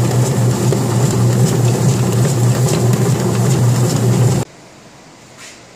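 Commercial dough mixer running steadily, its dough hook kneading stiff cookie dough in a stainless steel bowl: a loud, even machine hum. It cuts off abruptly about four and a half seconds in, leaving only a faint hum.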